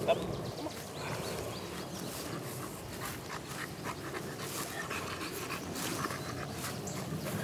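An American Bully dog panting, at an even level throughout. A brief sharp knock right at the start.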